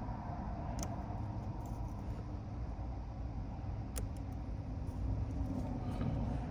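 Two light, sharp clicks of lock-picking tools working in the ignition lock cylinder, about a second in and again about four seconds in, over a steady low rumble.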